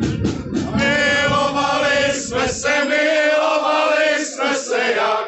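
A group of men singing together in unison, in phrases with short pauses for breath between them.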